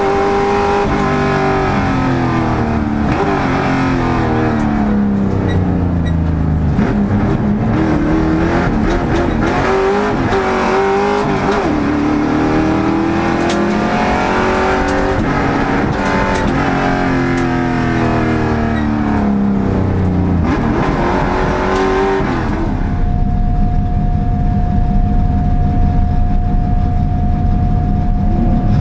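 Race car engine heard from inside the cockpit, revving up through the gears and dropping back at each shift and braking zone, lap after lap. About 23 seconds in the sound changes to a steady low rumble with a constant whine, the engine no longer revving.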